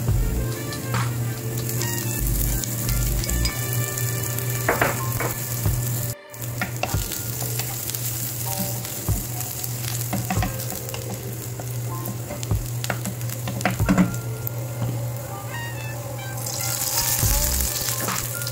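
Chopped onions and cumin seeds sizzling in oil in a nonstick frying pan, with the spatula clicking and scraping against the pan as they are stirred. The sound drops out briefly about six seconds in.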